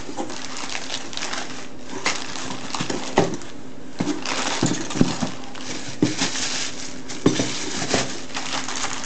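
Hands rummaging through a cardboard box of ceiling fan parts: cardboard, paper and plastic bags rustling, with scattered knocks and clicks as parts are lifted and shifted. A faint steady hum runs underneath.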